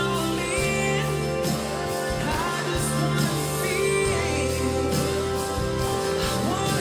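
Music with a singing voice over guitar accompaniment, gospel-style song.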